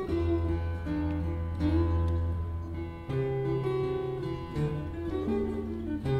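Taylor 314ce acoustic guitar played solo fingerstyle: a plucked melody over a held low bass note, with the bass moving up to a higher note about three seconds in.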